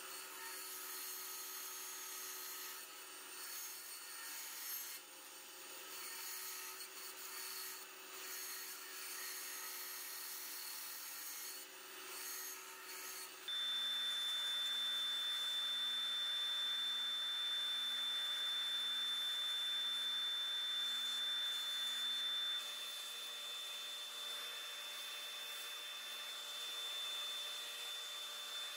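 A benchtop band saw cutting out a small wooden lure blank, the cutting sound rising and falling. About 13 seconds in it gives way abruptly to a louder disc sander running with a steady high whine as the wooden piece is pressed to the disc. Near the end a quieter belt sander runs while the piece is shaped on the belt.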